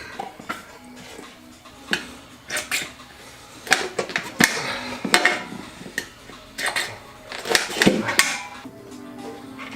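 Irregular metallic clinks and knocks, with some rubbing in between, from handling a motorcycle wheel rim as a new tire and inner tube are worked onto it.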